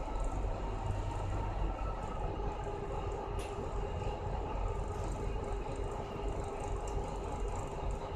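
An ASD tug's twin stern diesel engines running steadily and driving the tug slowly ahead, heard inside the wheelhouse as a deep drone with a faint steady whine above it. A small click about three and a half seconds in.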